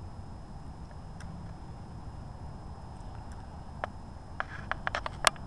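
Gray squirrel rummaging and chewing in a plastic tub of nuts and seeds: scattered sharp clicks that bunch together near the end, over a steady low rumble.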